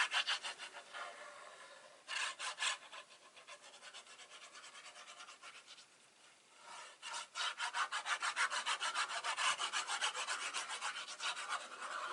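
Paper being rubbed down firmly with quick back-and-forth strokes, a rapid scratchy rasping. There is a run at the start, a short burst about two seconds in, softer rubbing, then a long run from about seven seconds on, pressing the glued panel of a paper gift box flat.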